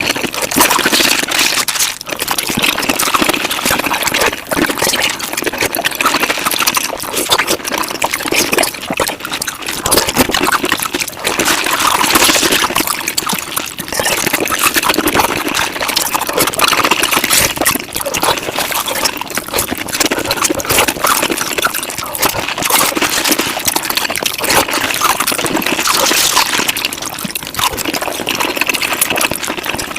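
Mukbang eating sounds sped up five times: chewing and mouth noises run together into a loud, continuous wet crackle of many quick clicks.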